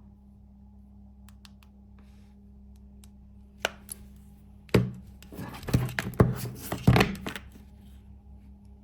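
Handling noise: a sharp click, then about a second later some three seconds of knocks, taps and scraping as things are picked up and moved close to the microphone.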